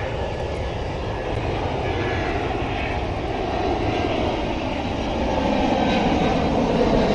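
An aircraft passing over, a steady engine rumble that slowly grows louder.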